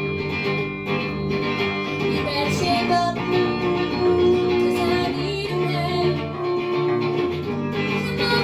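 Guitar strummed as accompaniment in an instrumental passage of a pop song, with no lead vocal.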